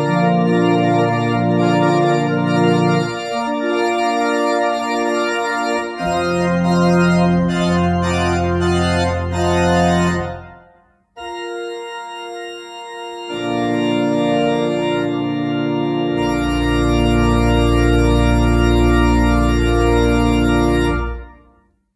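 Church organ playing slow, sustained chords with a low bass line. The music breaks off briefly about halfway through, resumes, and ends on a long held chord with a deep pedal note that dies away near the end.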